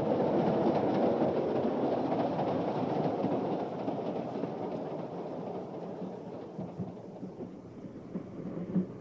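Train running on the rails, a steady rumble that gradually fades down over the second half.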